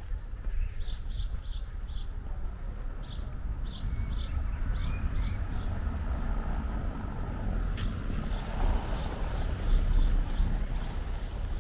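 Small birds chirping in short repeated calls over a steady low rumble, with a car passing that swells up about eight to ten seconds in.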